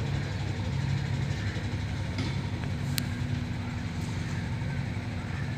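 Engine of a heavy construction vehicle running steadily at a low pitch, with one sharp click about three seconds in.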